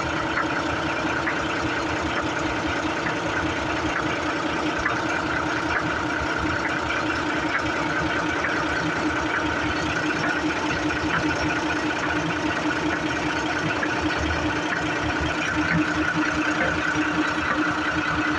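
Leyland truck running steadily with a constant whining tone over the engine: the abnormal noise from its gearbox.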